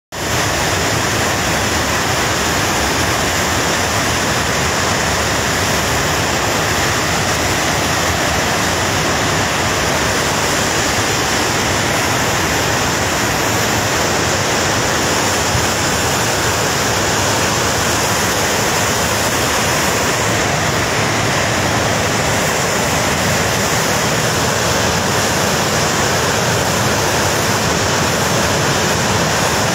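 Muddy, debris-laden flash-flood water rushing down a mountain river gorge in a loud, steady, unbroken rush: the surge from a dam collapse.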